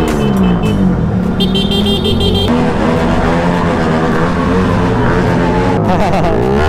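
Several motorcycle engines running together in a group ride, their pitches rising and falling as they accelerate and ease off. A short horn beep sounds about a second and a half in.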